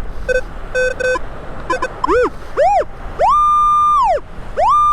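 Metal detector's audio signalling a buried target, a bottle cap: short two-pitch chirps in the first two seconds, then tones that swoop up and fall back, and two long steady high tones of about a second each near the end.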